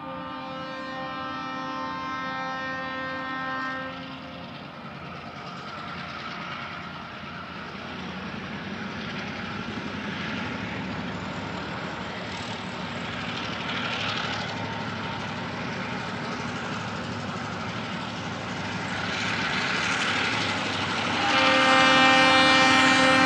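Multi-tone horn of a TasRail freight train sounding for about four seconds, then again near the end, louder. In between, the four diesel locomotives hauling it work hard at full throttle, their engine noise building as the train climbs closer.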